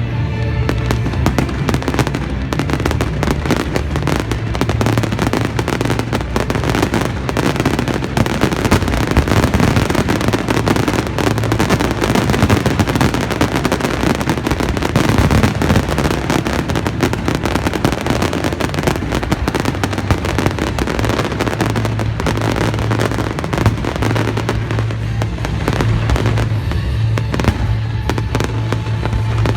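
A fireworks display: a dense, continuous crackle of many rapid bangs and pops, with music playing underneath.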